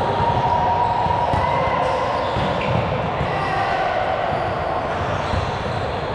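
Gym game ambience: a ball thudding on a hard floor amid a steady echoing hall din, with some faint voices.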